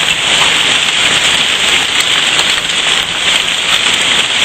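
Hailstones about the size of quarters, with heavy rain, pelting the ground and hard surfaces: a dense, steady hiss with many small sharp ticks of stones striking.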